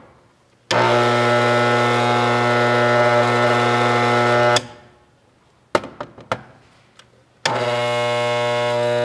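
Armature growler's electromagnet humming steadily on mains power, switched on twice: it hums for about four seconds, stops, a few light clicks follow, then it hums again near the end. The steel strip held over the armature does not start shaking, so the armature tests good with no shorted windings.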